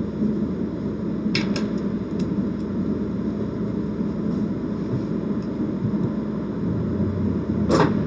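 Casino chips clicking a few times as they are counted and stacked into a chip tray, with the loudest clack near the end, over a steady low hum.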